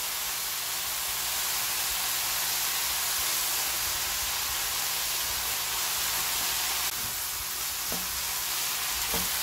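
Ground pork and chopped vegetables sizzling steadily in a frying pan under a dollop of gochujang. From about seven seconds in, a spoon stirs the mixture with a few light knocks against the pan.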